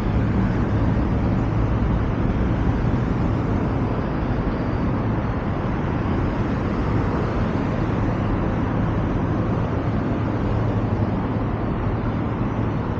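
Steady road traffic noise with a constant low hum.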